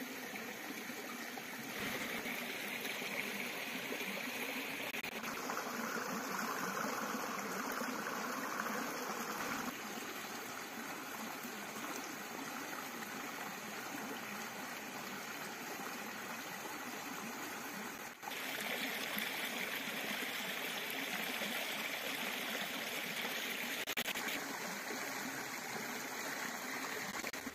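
Shallow stream of water flowing over rocks, a steady rushing trickle whose tone shifts abruptly several times.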